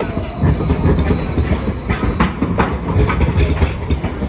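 Hiroshima Electric Railway Green Mover low-floor tram passing close by: a steady low rumble of the car with a run of sharp clacks as its wheels cross the points and rail joints, more of them in the second half.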